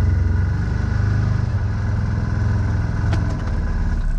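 CF Moto ZForce 1000 side-by-side's V-twin engine running steadily at low revs, a deep pulsing rumble.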